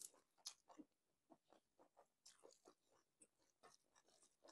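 Faint close-miked eating sounds: chewing with short wet mouth clicks and smacks, several a second at an uneven pace.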